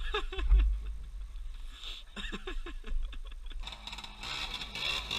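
Dirt bike engine running, with wind rumbling on the microphone.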